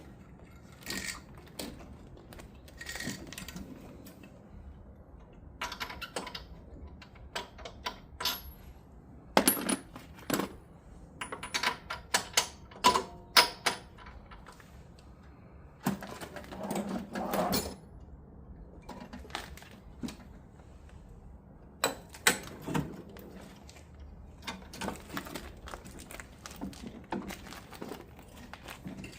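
Hand tools and small metal parts clinking and clicking as they are handled during work on a snowblower engine. The clinks come in irregular groups, with quick runs of clicks in the middle stretch.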